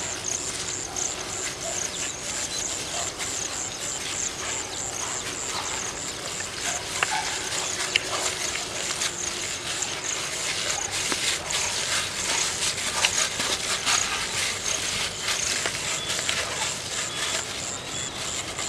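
A plastic-gloved hand squishing and kneading a soft banana, maida and jaggery dough in an aluminium pot, with irregular wet squelches and clicks against the metal. A steady, fast-pulsing high insect chirring runs behind it.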